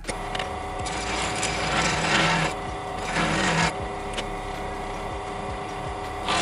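Bench drill press running, a larger bit cutting into a metal model part to enlarge pre-drilled holes. The cutting gets louder twice, around two and three seconds in, eases off, and starts again right at the end.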